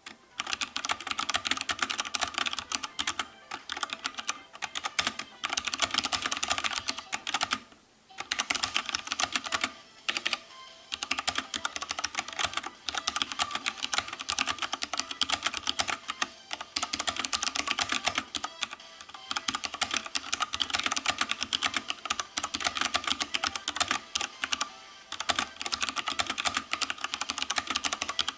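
Fast, continuous typing on a mechanical keyboard with Cherry MX Brown tactile switches: a dense run of key clicks with two short pauses, about eight and about ten seconds in.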